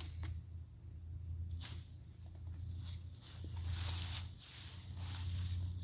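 Potato-planted tire stack being kicked over: faint knocks and footsteps, with a hissing rush of loose soil about four seconds in, over a steady low hum.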